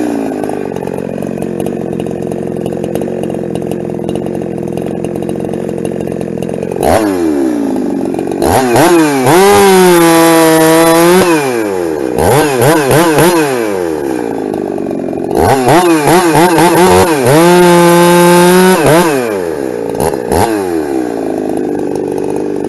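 Ported Husqvarna 372 two-stroke chainsaw idling, then run up to full throttle and held there twice for about three seconds each, with quick throttle blips between and a drop back to idle at the end.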